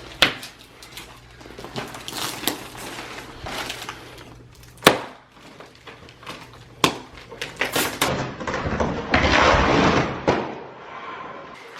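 Rustling and handling of a mattress-in-a-box's packaging, with several sharp knocks and clicks spread through, and a stretch of dense rustling in the last few seconds.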